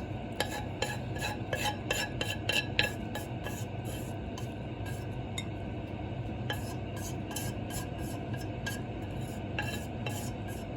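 Metal utensils scraping and ticking against dishware, a quick run of light clicks and rubs, over a steady low hum.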